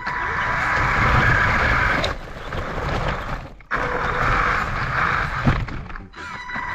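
Radio-controlled car running at speed, a steady whine over a noisy hiss with low rumble, which drops out briefly a few times and comes back.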